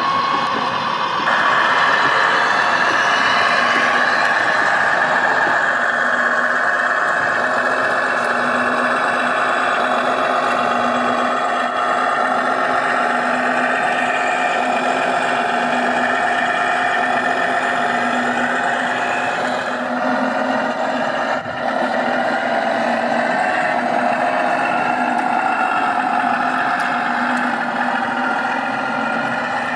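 Simulated diesel truck engine from an RC model's sound module, running steadily through its speaker. It gets louder about a second in, with a short dip about two-thirds of the way through.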